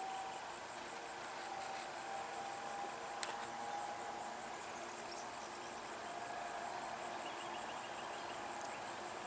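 Faint bush ambience: a steady, high-pitched pulsing insect trill, with a few brief bird chirps and a single sharp click about three seconds in.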